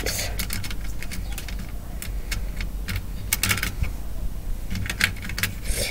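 Scattered light metallic clicks and ticks from fingers unscrewing the small nuts beside the connectors on the back panel of a Freeview set-top box.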